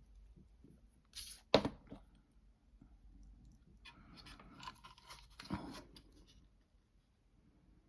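Handling sounds of small plastic model kit parts and tools on a work surface: a few sharp clicks and knocks, about a second and a half in and again about five and a half seconds in, with light rustling and scraping between.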